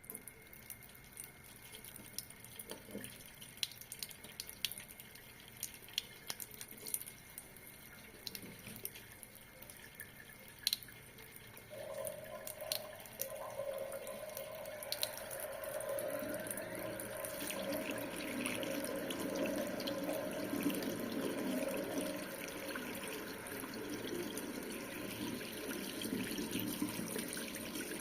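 Water from a tap starts as a thin dribble with separate drips and splashes, then the flow increases into a steadier running stream that grows louder. A faint steady hum joins about twelve seconds in.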